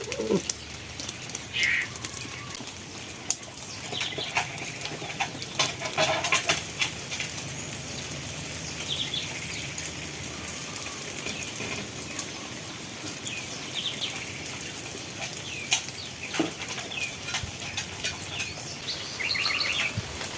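Birds chirping now and then over a steady hiss with many scattered clicks and taps.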